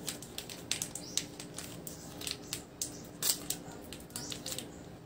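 Cardboard and wrapper packaging of a milk chocolate bar being opened by hand: irregular crackling and rustling, with the loudest crackle about three seconds in, over a faint steady hum.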